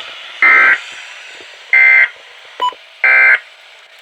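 Three short bursts of weather-radio SAME data tones, about a second apart: the digital end-of-message code that closes an emergency alert broadcast. A brief faint blip sounds between the second and third burst.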